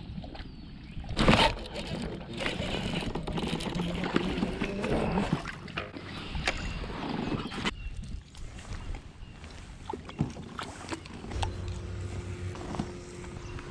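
Handling noises aboard a fishing kayak: scattered clicks and knocks of rod, reel and gear over water noise, with one loud rush of noise about a second in.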